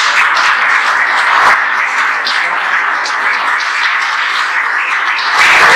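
A small audience applauding, a steady patter of clapping that grows louder again near the end.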